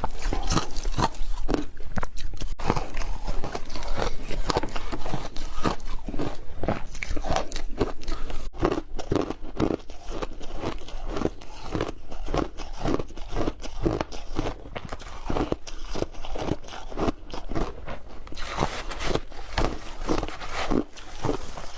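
Close-miked chewing of something crunchy, a steady run of crisp crunches at about three a second.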